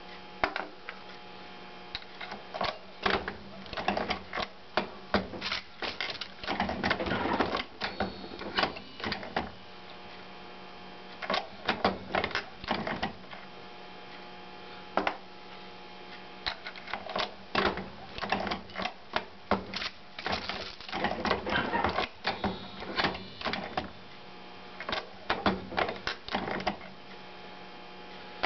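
Turret-style ammunition reloading press being cycled: irregular clusters of metallic clicks and clacks as the lever works the ram and the turret head, and cases, primers and bullets are handled. A steady low hum runs underneath.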